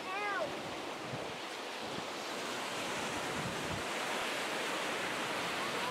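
Steady rush of ocean surf, with some wind on the microphone.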